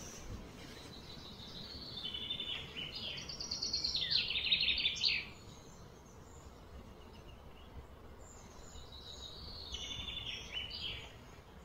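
A songbird singing two phrases of quick repeated high notes. The first, about a second in, grows into a fast, loud trill and stops sharply about five seconds in; the second, shorter phrase comes near the end, over a steady background hiss.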